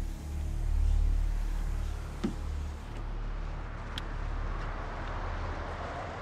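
Low rumble of a car engine with highway traffic hiss that swells through the middle; a light click about two seconds in and another about four seconds in.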